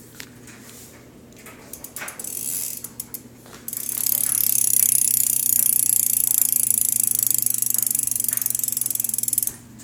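Rear-wheel freewheel ratchet of a stock DK BMX bike clicking as the wheel spins freely, pretty loud. A few scattered clicks come first, then from about four seconds in a rapid, dense, high-pitched ticking runs for about six seconds and stops abruptly.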